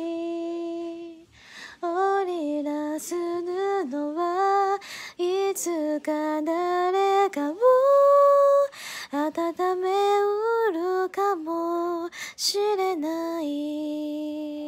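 A female voice singing a slow Japanese ballad unaccompanied, in phrases with short breaths between them, ending on a long held note near the end.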